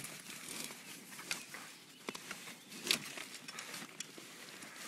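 Close handling noise: scattered rustles and light knocks from the landing net and jacket being moved right by the microphone, with one sharper knock about three seconds in.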